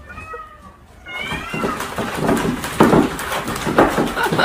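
A puppy whimpering in a few thin, high whines, then a run of knocks and clatter as a plastic skateboard is knocked about on a wooden floor.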